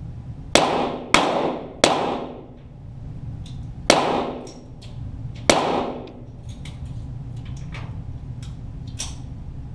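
.22 rimfire target pistol (Walther GSP) shots, heard from beside the target: five sharp cracks, three in quick succession and two more spaced out, each ringing in the range hall, followed by a few much fainter cracks.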